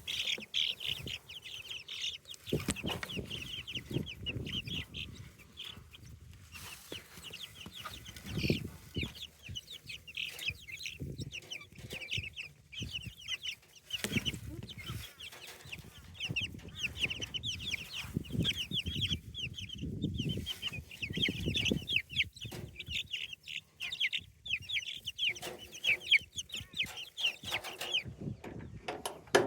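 Chickens clucking busily, a constant stream of quick high-pitched calls, as they feed on a handful of cooked barley.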